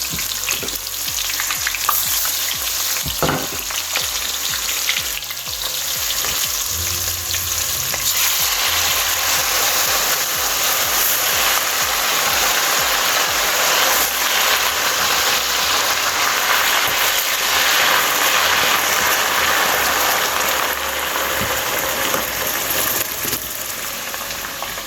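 Tomatoes frying in hot vegetable oil in a pot, a steady sizzle that grows louder about eight seconds in. A couple of sharp knocks near the start.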